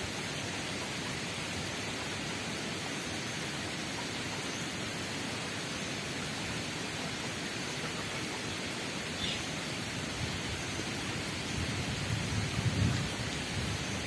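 Steady hiss of outdoor background noise, with a short low rumble swelling near the end.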